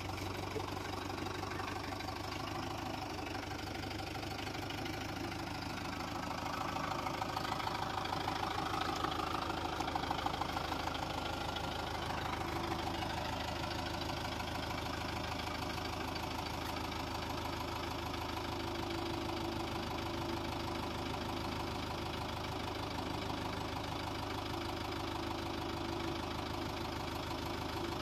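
Mahindra tractor's diesel engine running steadily as the tractor sits bogged in a muddy, waterlogged ditch, getting a little louder for a few seconds from about six seconds in, then settling back.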